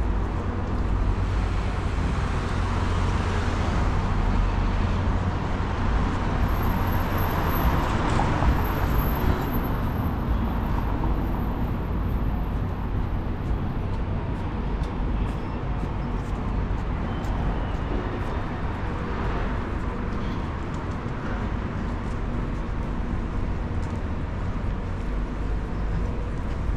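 City street ambience: steady road traffic rumble, swelling as a vehicle passes loudest around eight seconds in.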